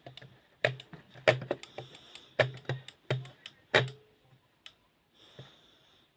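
A Hetronic radio remote control system being worked during a bench test: about a dozen sharp, irregular mechanical clicks from its switches and relays in the first four seconds, then a couple of faint ones.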